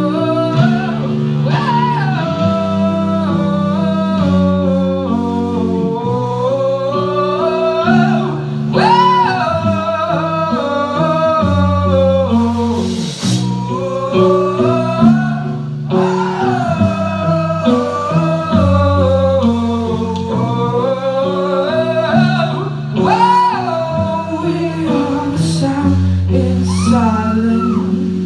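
A live rock band's song intro: a singer's long, gliding vocal lines over held guitar chords that change every second or two.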